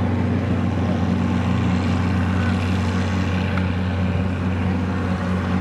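Oliver tractor engine running steadily under heavy load as it drags a weight-transfer pulling sled, a low, even drone with no change in pitch.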